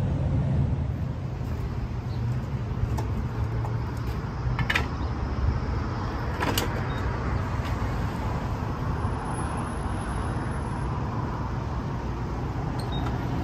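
Steady low rumble of road traffic and vehicles on a gas station forecourt, with a couple of sharp clicks and, near the end, short electronic beeps as the fuel pump's keypad is pressed.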